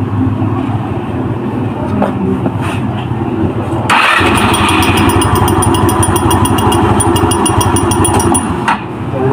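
Yamaha Easyride 150N scooter engine running; about four seconds in it gets louder and a fast, even metallic clattering joins it for some four seconds, then stops. The clatter is the fake engine knock of a prank, meant to pass for a badly knocking engine.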